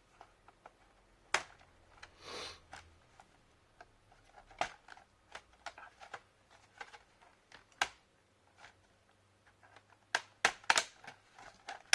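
Plastic clicks and snaps as an HP 15 laptop's plastic case is pried apart with a plastic pry tool, the clips letting go one by one. There is a brief scrape about two seconds in and a quick run of sharp clicks near the end.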